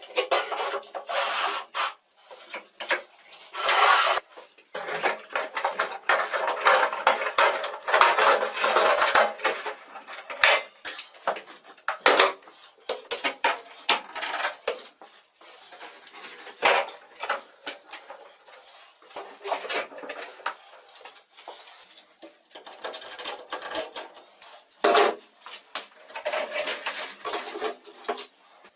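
Irregular knocking, clicking and rubbing as plastic pipe, plywood parts and hoses are handled, set on a barrel and fitted together. No motor runs.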